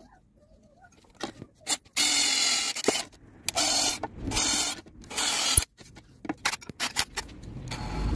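Power drill with a twist bit boring holes through a wooden board, in four short bursts a second or less each, with clicks and knocks of handling between them. Another hole is being started near the end.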